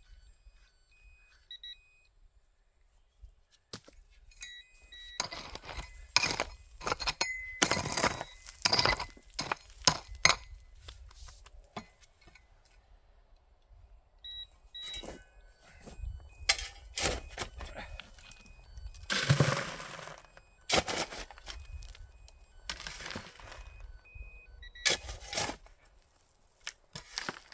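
Rocks and gravel scraping and clattering in bursts as tailing material is shoveled and screened through a classifier. Faint short electronic beeps from a metal detector repeat in between.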